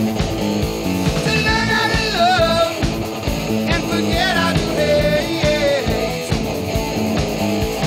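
Rock song with guitar and a singing voice over a steady beat.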